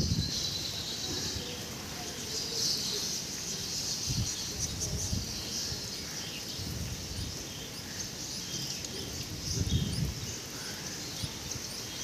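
Steady rain falling, heard as a continuous hiss, with a few short low rumbles of wind gusting against the microphone and faint bird chirps in the second half.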